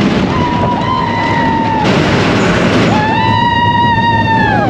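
Roller coaster train rumbling along its track while a rider screams twice. Both screams are long and held, and the second falls away in pitch at the end.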